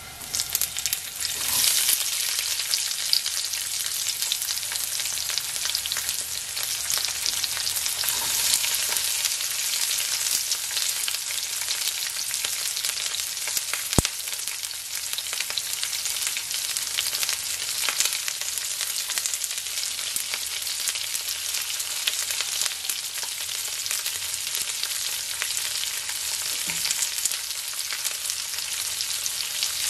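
Diced red onion dropped into hot olive oil and garlic in a nonstick skillet, starting a loud, steady sizzle as it fries. A single sharp click about halfway through.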